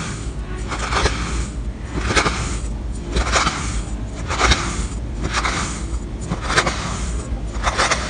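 Knife blade slicing repeatedly through a block of kinetic sand, one sharp scraping cut about every second.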